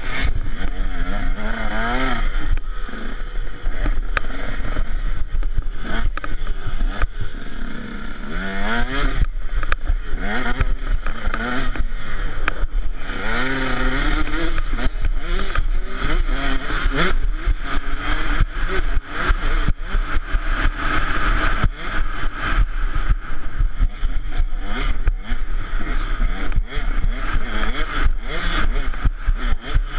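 KTM 150 SX two-stroke dirt bike engine being ridden hard, revving up and down over and over as the rider works the throttle and gears.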